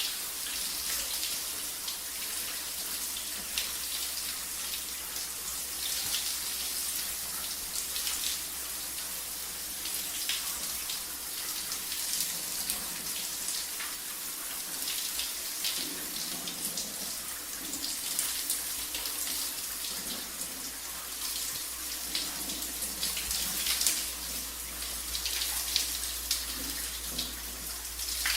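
A shower running: a steady spray of water hissing and spattering irregularly against a surface.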